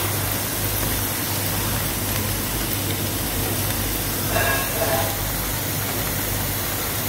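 Pakoda pieces of batter-coated green cashew nuts sizzling steadily as they deep-fry in hot oil, a continuous bubbling hiss.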